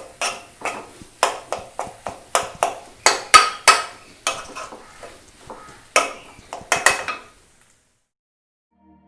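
A metal spoon scraping and knocking against a cooking pan, stirring or scooping the potato masala in quick strokes about two a second. It stops about seven seconds in.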